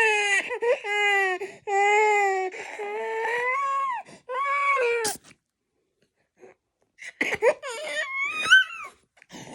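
Toddler crying: several long, high wails in a row, a pause of about two seconds, then short, broken sobs near the end. She is crying from the irritation of having mucus cleared from her nose and chest.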